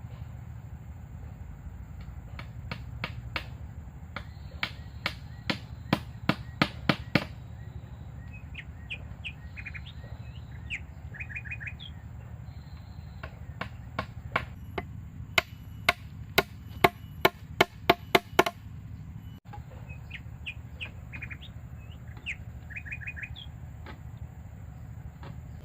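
Two runs of sharp, evenly spaced tool strikes on wood, about two to three a second, with short bird chirps in the gaps between them.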